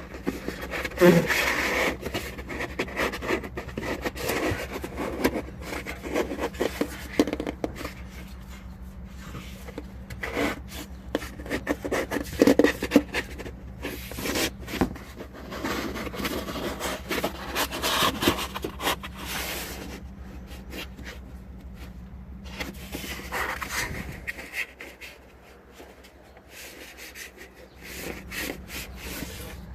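Hands rubbing and scraping a plastic door trim piece on a Chrysler 300 as it is worked back into place, in irregular scratchy strokes.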